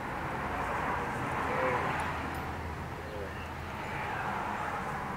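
A passing vehicle's noise swelling and then easing off, over a steady low hum. A few short squeaky sounds come through it.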